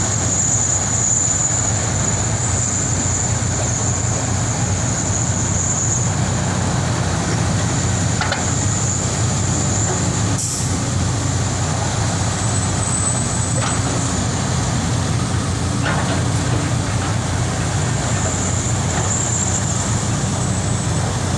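Old Sany hydraulic excavator's diesel engine running steadily, with a steady high whine over it and a few short knocks about a third of the way in, near the middle and later on.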